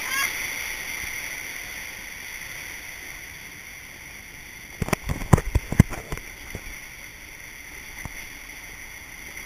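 Steady rushing noise of water and air as an inflatable raft slides down a water-coaster tube. About five seconds in there is a quick series of sharp knocks and thumps, then the steady rush carries on.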